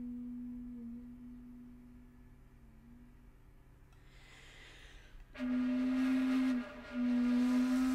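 Background music: a solo flute holding long, breathy notes. One note fades away, a breath comes in about four seconds in, and a new long note enters about five and a half seconds in, with a short break near the end.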